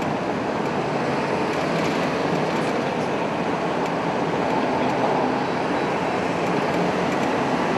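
Steady road and engine noise heard from inside a moving vehicle, an even rushing hum that holds at one level.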